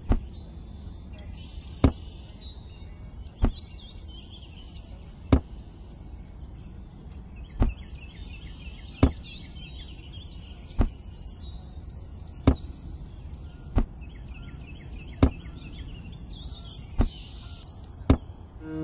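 Small toy fruits set down one by one into miniature wooden crates and wagons, each making a sharp knock, about a dozen at a rate of roughly one every second and a half. Birds chirp in the background.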